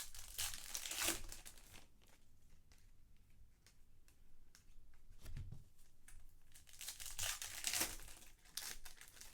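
Foil trading-card pack wrappers being torn open and crinkled by hand, with bursts of tearing and rustling near the start and again about seven seconds in.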